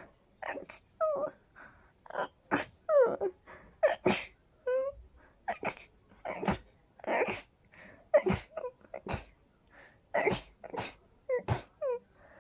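A dog making a quick series of short noisy huffs, about two a second, mixed with brief high whines that fall in pitch.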